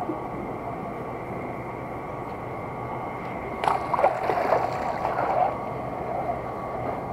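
Water splashing and streaming off a mesh keep net with fish inside as it is pulled up out of the pond, for about two seconds from halfway through. A steady hum sits underneath.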